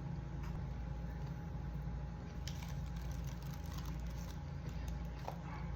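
Steady low background hum, with a few faint short clicks about halfway through and near the end.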